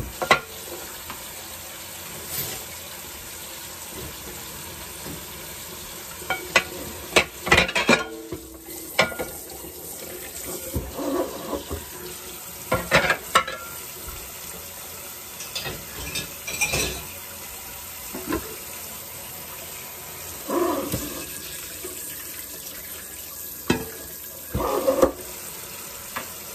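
Tap water running into a kitchen sink as dishes are rinsed, with dishes clattering and knocking together every few seconds.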